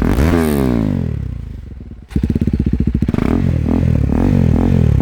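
KTM Duke 390 single-cylinder engine revved through an exhaust with the dB killer removed. It is blipped hard at the start and falls back over about two seconds, drops to a pulsing low note, then is revved up again and held high.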